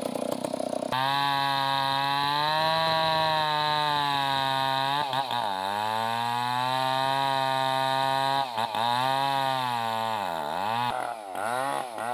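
Two-stroke chainsaw cutting through a large timber log at high revs, its engine note steady with two brief dips in the middle. Near the end it revs up and down several times in quick succession.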